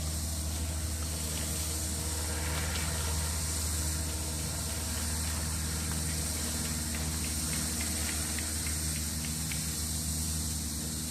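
An engine running steadily with a low hum, under a steady high hiss.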